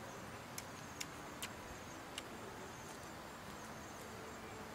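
Faint forest ambience with a thin, high insect buzz, broken by four small sharp clicks in the first two seconds or so.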